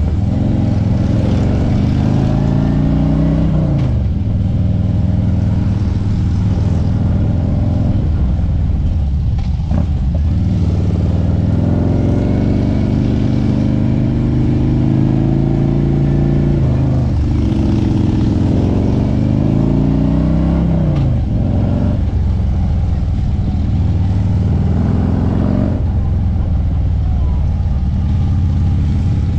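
Harley-Davidson Street Glide's V-twin engine running under way, its pitch climbing as it accelerates and dropping suddenly several times as it shifts up or eases off.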